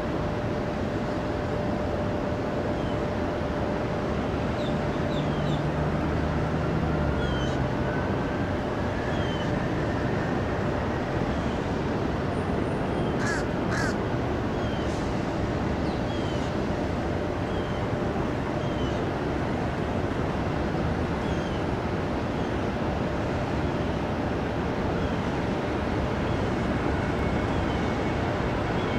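Birds giving short calls again and again, every second or two, over a steady rush of outdoor background noise with a low steady hum.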